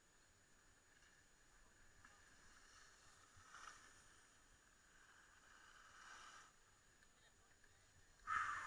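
Faint swishes of skis scraping over packed snow as the skier turns, with a louder, sharper scrape near the end.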